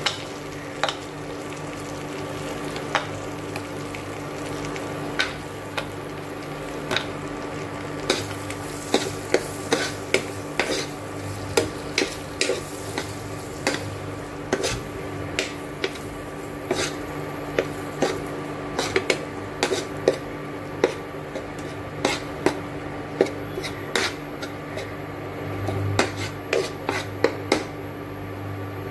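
Metal spoon stirring melting chocolate sauce in a nonstick frying pan, clicking and scraping against the pan many times, busier from about a third of the way in. A steady hum runs underneath.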